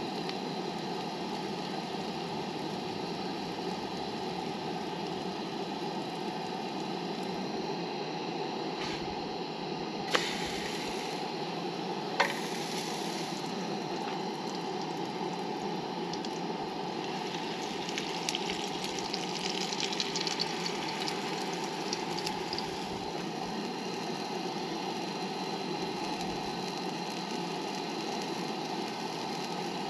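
Propane camp stove burner running with a steady hiss under a frying pan. Twice a utensil clinks sharply against the cookware, and in the middle pancake batter sizzles in the hot pan.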